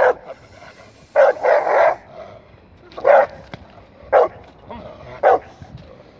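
A large Rottweiler-type dog barking in single, deep barks about a second apart, five or so in all. It is barking at a helper with a bite sleeve during protection-training agitation.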